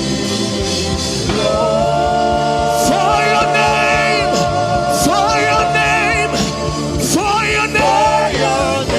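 Slow gospel worship music: long held sung notes that waver and bend in pitch, entering about a second and a half in, over a steady low beat.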